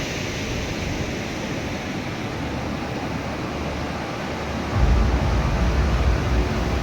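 Stormy sea surf and wind, heard as a steady rushing noise with wind on the microphone. About five seconds in, a louder low rumble sets in and holds.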